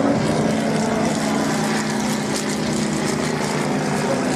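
Piston engine and propeller of a low-flying biplane droning steadily as it passes overhead, the pitch sagging slightly midway.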